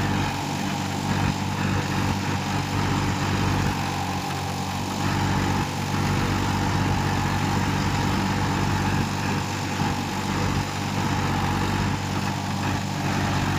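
Massey Ferguson 241 DI Dynatrack's three-cylinder diesel engine running steadily under load, pulling a seven-tine cultivator through the soil.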